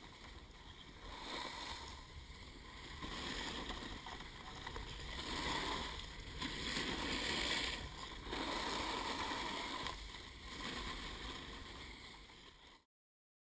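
Snowboards sliding and carving over packed snow, a rushing scrape that swells and eases with each turn; it cuts off suddenly near the end.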